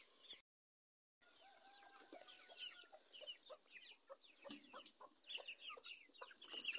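Domestic hens clucking, faint, many short quick calls scattered through, after a brief dead gap about half a second in.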